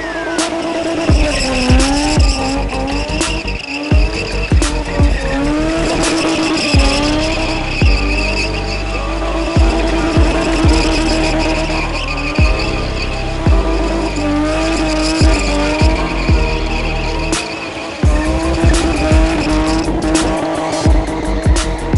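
BMW E30 spinning in circles: engine held at high revs while the rear tyres squeal and skid, mixed with a looping music track with a regular beat.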